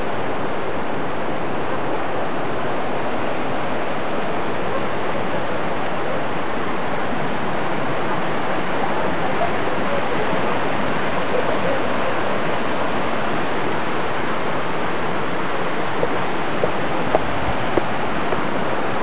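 A steady, even rush of water, with a few faint ticks near the end.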